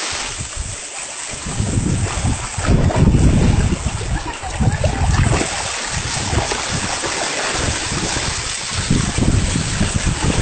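Splashing and churning of a dense shoal of fish thrashing at the surface of shallow water, with gusty wind buffeting the microphone.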